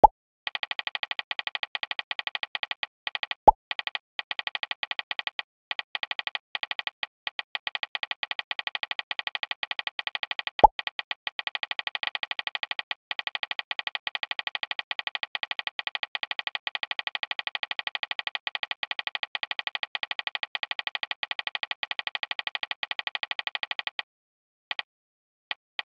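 Phone on-screen keyboard typing sounds: rapid, even clicks that run in long streaks with short pauses. Twice, about three seconds in and again about ten seconds in, a chat app's message alert sounds as a short 'plop' that falls in pitch.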